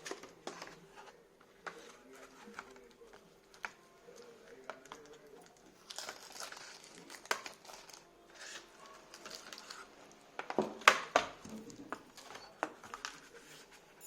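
A cardboard box and its plastic wrapping being opened and handled by hand: irregular rustling, tearing and small knocks, loudest in a quick flurry about eleven seconds in.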